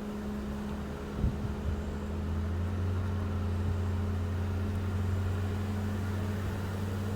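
Car engine and road noise heard from inside a moving car: a steady low drone that grows a little louder about a second and a half in, with a couple of light knocks near the start.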